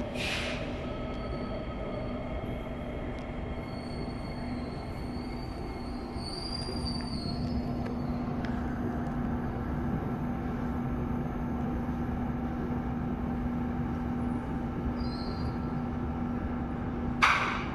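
KHI C151 metro train running through a tunnel, heard from inside the car: a steady rumble of wheels on rail with a steady hum, faint high-pitched wheel squeal about six seconds in, and a sharp knock near the end.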